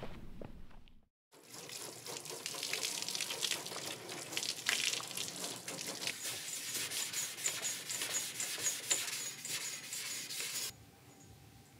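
Water from a garden hose splashing and pattering onto a primed car hood. It starts about a second in and cuts off suddenly near the end.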